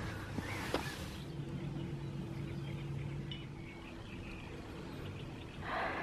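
Quiet outdoor ambience: a few footsteps in the first second, then a steady low hum of a distant engine for a couple of seconds, with faint bird chirps.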